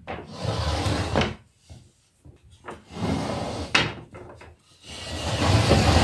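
Wooden folding clothes-drying rack being handled and moved: wooden slats rubbing and knocking, with a sharp wooden clack about a second in and another near four seconds. About five seconds in, a louder steady rushing noise starts.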